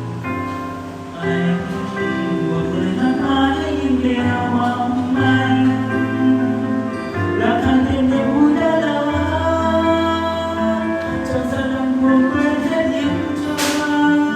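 Karaoke singing through a K18U Bluetooth microphone over a backing track, both coming out of an LG SNH5 soundbar with a heavy bass line.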